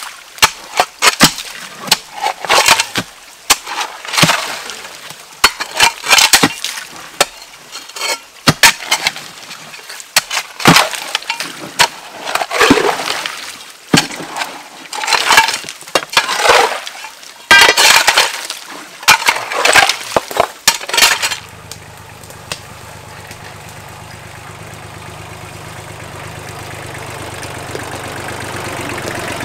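Repeated sharp blows of a hand tool chopping through tree roots and stony soil, about one strike a second. About two-thirds of the way through they stop and a compact tractor's engine takes over, running steadily and growing gradually louder.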